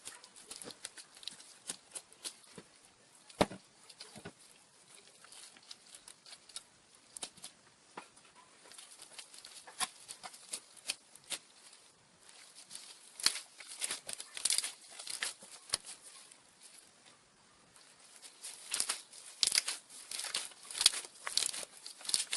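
Fluffy slime being squeezed and worked by hand, making quick irregular crackles and pops. They come thicker and louder about halfway through and again near the end.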